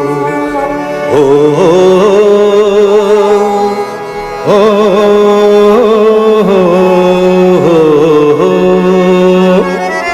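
Opening of a Hindi film song: a slow, wavering melody with vibrato that slides up into each new phrase, over a held low note, with a brief dip in level just before the second phrase.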